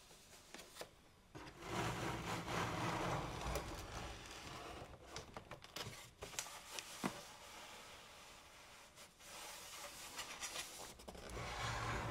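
Hands turning and sliding a cardboard product box, its surfaces rubbing against palms and fingers in long rustling stretches. There are a few sharp taps and clicks in the middle as the box is shifted in the grip.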